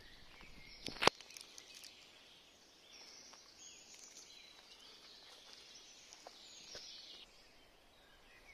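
Several songbirds singing and chirping, high-pitched and fairly faint, with a single sharp click about a second in.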